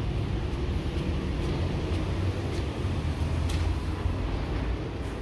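Outdoor city-street noise: a steady low rumble, with a few faint clicks.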